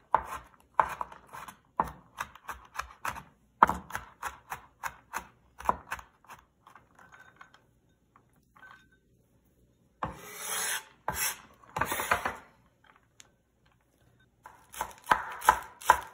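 Chinese cleaver rapidly chopping on a wooden cutting board, mincing garlic finely, the knocks thinning out after about six seconds. Around the middle the blade scrapes across the board for a couple of seconds, and quick chopping starts again near the end, on green onions.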